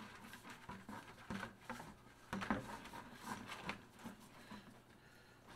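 Faint rustling and soft clicks of a mesh hash bag's drawstring being pulled tight around the rim of a plastic five-gallon bucket by gloved hands, so that the bag stays on.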